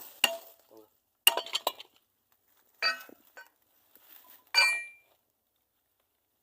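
Hammer striking the steel wheel hub of a grab loader: sharp ringing metal blows, a quick run of several about a second in, then single blows spaced out, the last the loudest.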